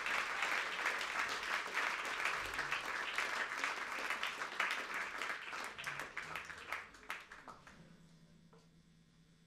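Audience applauding, dying away about seven to eight seconds in and leaving a faint steady hum.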